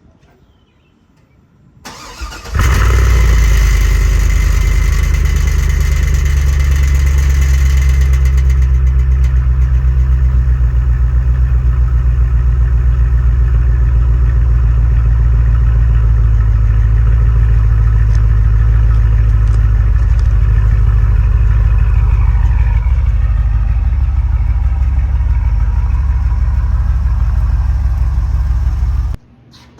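Chevrolet Trailblazer SS's 6.0 L LS2 V8 cranked and started about two seconds in, then idling loudly, rough and pulsing, through a bad exhaust manifold leak. It idles higher and brighter for the first several seconds, then settles. It shuts off abruptly just before the end.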